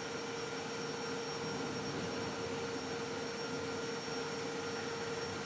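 Large CNC machining centre running steadily during a fine U-drilling operation: an even machine hiss with a steady mid-pitched hum.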